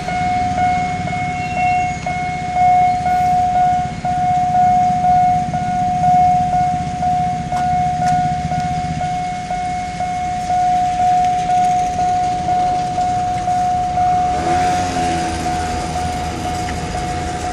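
Level-crossing warning bell ringing in a fast, even rhythm, about two and a half strokes a second, over the low rumble of a narrow-gauge sugar-cane train: a DIEMA diesel locomotive hauling empty cane wagons through the crossing. More rattle comes in about fourteen seconds in.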